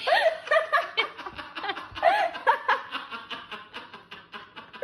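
Human laughter: a steady run of short, quick laughs.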